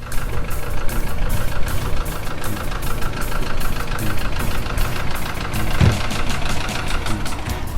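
A steady engine-like running sound with a fast, even pulsing, and a brief low thump a little before six seconds in.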